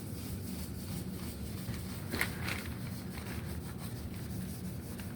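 Faint handling and rubbing noise, with a brief sharp rustle a little over two seconds in, over a steady low hum.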